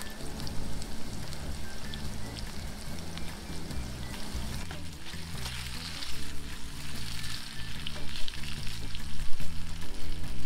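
Hand-cut potato chips shallow-frying in hot oil in a pan, with a steady crackling sizzle that grows stronger about halfway through.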